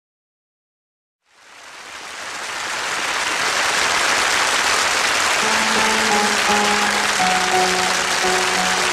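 Audience applause that starts about a second in and swells up, with a song's instrumental introduction coming in beneath it about five seconds in as a few steady held notes.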